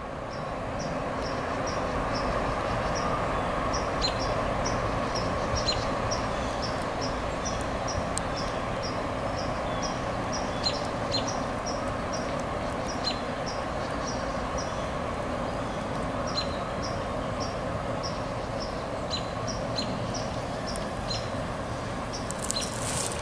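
A distant CSX freight train approaching: a steady rumble of locomotive and rolling train that swells over the first couple of seconds and then holds. Over it, a faint high chirp repeats evenly about two to three times a second, and crackling starts near the end.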